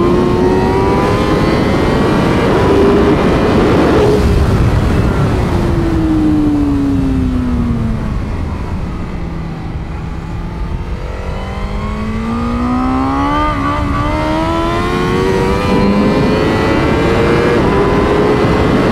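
2021 Honda Fireblade SP's inline-four engine at track speed, heard onboard: the engine note rises, then falls steadily for about five seconds as the revs drop, and climbs again under acceleration through the second half.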